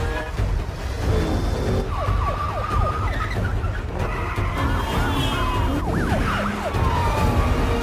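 Police car siren wailing in quick repeated sweeps over the low rumble of a vehicle.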